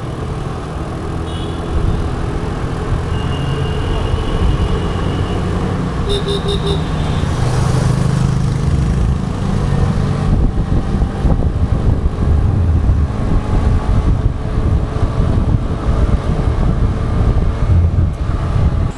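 Road traffic heard from a moving scooter: a loud, steady low rumble, with vehicle horns tooting several times in the first few seconds. After about ten seconds the rumble turns rougher and more buffeting.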